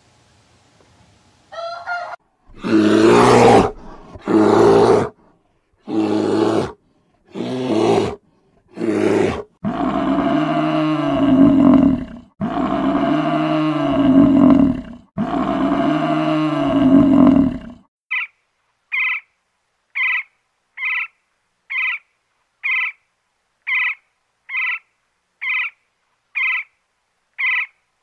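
Five loud, rough animal calls about a second apart, then three long bellows of an African buffalo, each about two and a half seconds. In the last third, a muntjac (barking deer) gives short, sharp barks about once a second.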